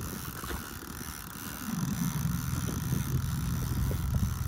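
A boat motor running: a low steady hum comes in a little under two seconds in, dips in pitch at first, then holds level.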